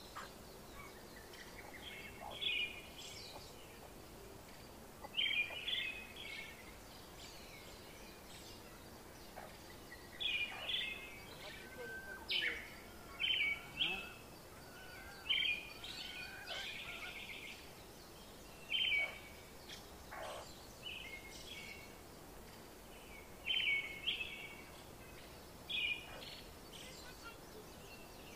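Young chicks peeping: short clusters of high chirps repeating every two to three seconds over a steady background hiss.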